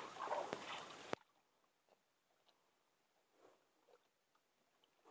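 Faint rustling with a few small clicks that cuts off suddenly about a second in, leaving near silence.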